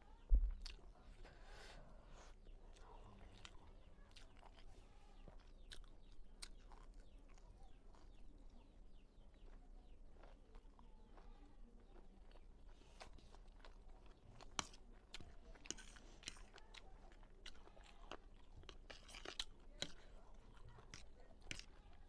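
Close-miked chewing of a mouthful of fried noodles: wet smacking and mouth clicks with scattered small crunches. A low thump comes just after the start.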